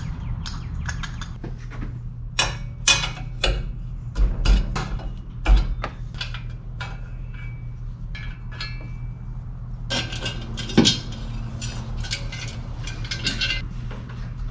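Steel tools being handled, most likely a hole saw and its arbor being readied for drilling: a string of sharp metallic clicks and clinks that thin out midway and pick up again, over a steady low hum.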